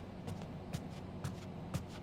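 Soft, evenly spaced ticks, about two a second, over a low hum.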